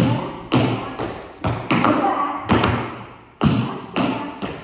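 Tap shoes striking a wooden studio floor in an uneven tap-dance rhythm, with about eight sharp taps, each ringing on briefly in the room.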